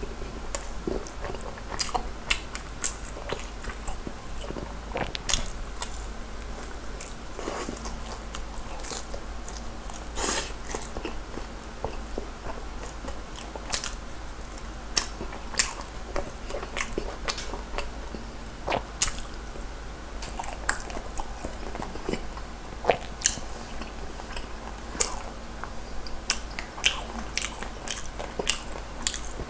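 Close-miked eating of soy-garlic glazed fried chicken: irregular crisp crunches and chewing as pieces are bitten off the bone and chewed, a scattered string of sharp crackles throughout.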